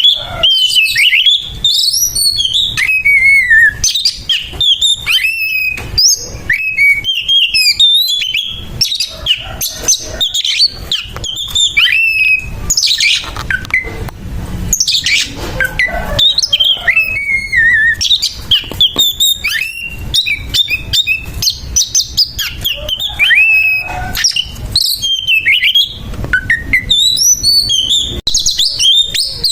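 Oriental magpie-robin (kacer) singing a loud, continuous aggressive 'fighting' song. Rapid, varied whistled phrases slide up and down and are mixed with harsh, raspy notes.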